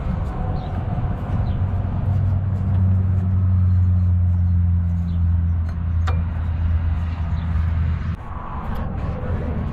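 Low, steady engine hum of a running vehicle, louder a couple of seconds in and cutting off suddenly about eight seconds in, with a single sharp click about six seconds in.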